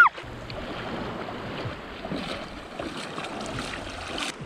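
Shallow sea water sloshing and lapping, with the splashes of a person wading through knee-deep water.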